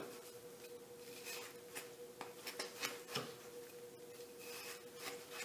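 Long kitchen knife drawn in repeated deep slices through the flesh of a halved watermelon: faint, soft crunching and scraping strokes.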